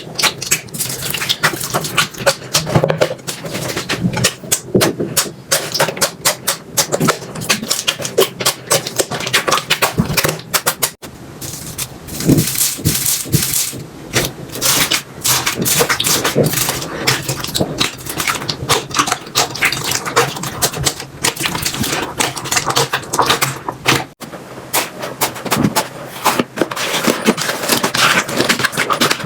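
Hands squeezing, stretching and poking slime: a dense run of crackling, clicking pops. The clips change abruptly about eleven and twenty-four seconds in.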